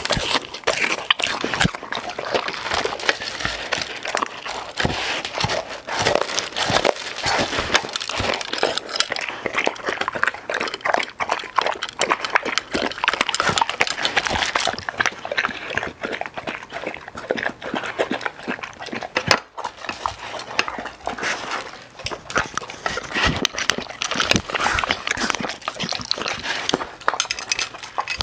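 Black Labrador eating dry kibble from a glass dish: close, rapid crunching and chewing, with its muzzle clicking and scraping against the glass.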